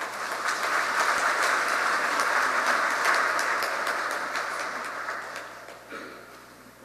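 Congregation applauding: a dense patter of many hands clapping that starts at once, holds for several seconds and dies away about six seconds in.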